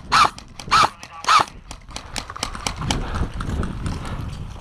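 Airsoft rifle fired in single shots: three sharp shots a little over half a second apart. Softer clattering and shuffling follow as the shooter moves.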